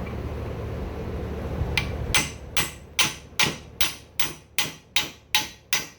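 Hammer blows in a steady run of about ten strikes, roughly two and a half a second, starting about two seconds in, driving a part along a shaft in a Cub Cadet 70 rear axle until it seats against the shaft.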